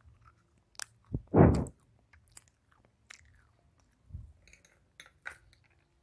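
A person chewing crunchy food with an earphone microphone held right at the mouth: scattered crisp crunches and clicks, the loudest about a second and a half in.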